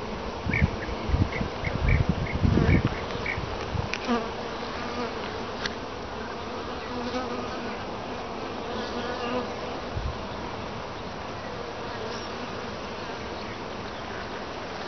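Honeybees buzzing steadily in an opened long hive, a dense colony hum around frames of comb. A few low rumbling bumps come in the first three seconds.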